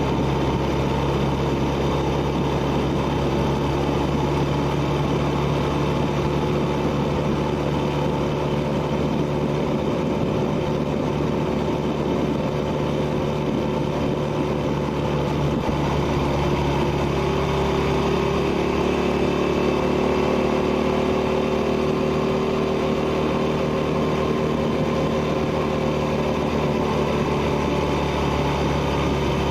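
1971 Honda Dream 250cc motorcycle's parallel-twin engine running steadily under way, its exhaust note heard from a camera mounted on the bike. About halfway through, the engine note shifts slightly.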